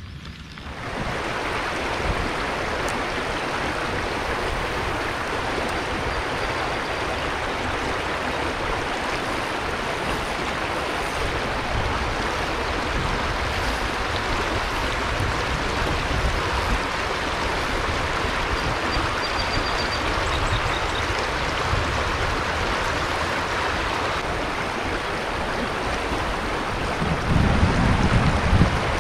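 River current rushing and churning over a riffle around a kayak, a steady wash of water that starts about a second in. A low rumble swells near the end.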